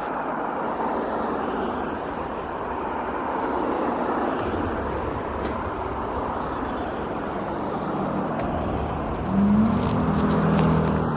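Road traffic noise from passing cars. About nine seconds in, a louder steady engine-like tone holds for about two seconds.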